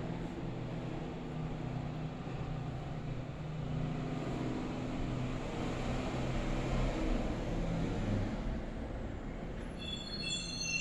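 A passing vehicle: a low engine hum with a rushing noise that swells, peaks about two-thirds of the way through, then fades. Near the end, high ringing tones start.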